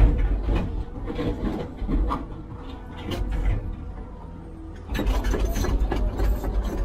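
Heavy construction machinery running with a low engine rumble and irregular clanks and knocks, getting louder about five seconds in.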